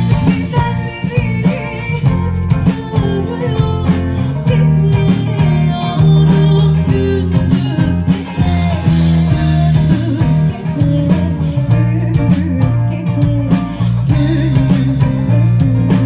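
Live band: a woman singing into a microphone over electric guitar, bass guitar and drum kit.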